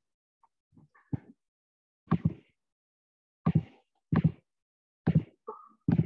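A string of short, dull knocks, about six of them at roughly one a second, with silence between.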